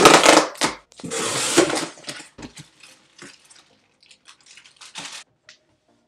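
Packaging rustling and crinkling as a bag is pulled out of a box: two loud rustles in the first two seconds, then scattered light crackles.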